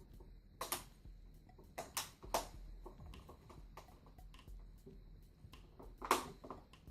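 Irregular sharp clicks and taps of hard plastic parts as a laptop's plastic cover strip is worked into place, several clicks close together around two seconds in and a loud one near the end.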